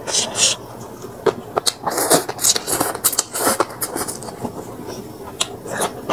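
Close-miked eating sounds of a person chewing a meal of rice noodles and fish: irregular wet mouth clicks, smacks and short crunchy bursts.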